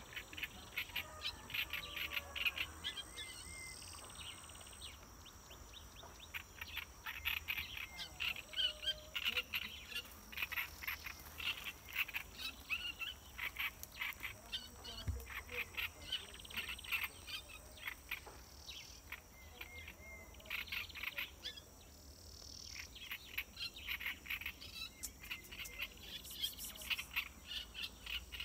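Small birds chirping in quick runs of short, sharp high notes, over a steady high insect hum.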